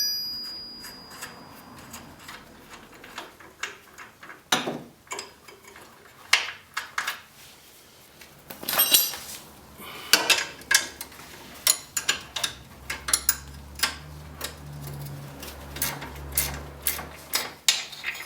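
Irregular clicks and clinks of a wrench on metal as the two 13 mm bolts holding a winch mounting bracket are worked loose. A low hum comes in after about twelve seconds and stops shortly before the end.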